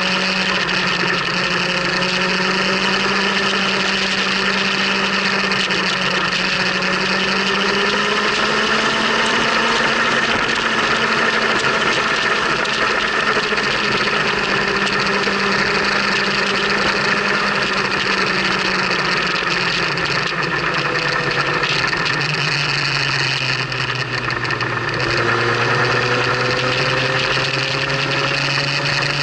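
Motorcycle engine running steadily under way, with wind and road noise over it. Near the end the engine note drops, then climbs steadily again as the bike picks up speed.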